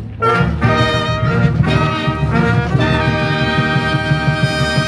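Brass band playing a short fanfare (a Tusch) in answer to the welcome, ending on a long held chord.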